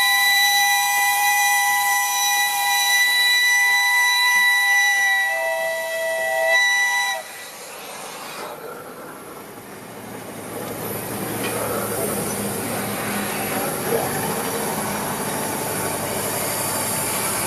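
Steam locomotive's whistle blowing one long, steady chord of several notes, cutting off suddenly about seven seconds in. After it comes a hiss of escaping steam with rail and running-gear noise, growing louder in the second half.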